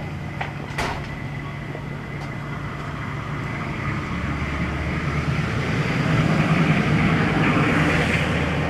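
A road vehicle's engine running, growing louder from about four seconds in to a peak near the end and then easing off, as when it passes close by. A sharp click about a second in.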